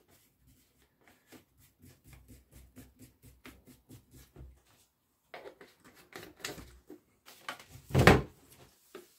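A plastic screw cap being twisted onto a small plastic fuel bottle, making a run of faint small clicks. This is followed by handling noise and a louder cloth rub and knock about eight seconds in, as the bottle is wiped with a rag.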